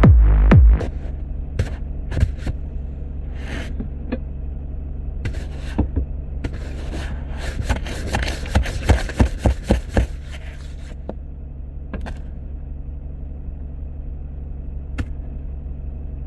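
A vehicle engine idling with a steady low rumble, with scattered clicks and scraping handling noises and a dense flurry of clicks and scrapes in the middle. Electronic music cuts off under a second in.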